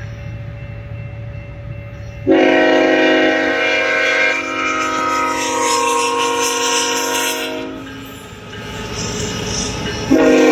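A Nathan K5HL five-chime air horn on a BNSF Tier 4 freight locomotive sounding a long, loud chord. It comes in abruptly about two seconds in after a low steady rumble, holds for about five seconds, fades away, and blows loud again near the end.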